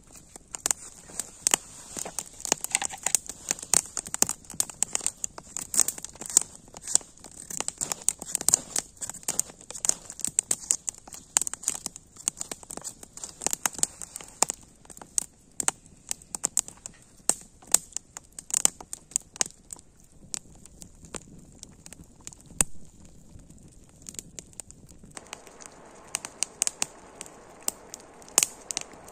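Wood campfire crackling, with many sharp pops several times a second.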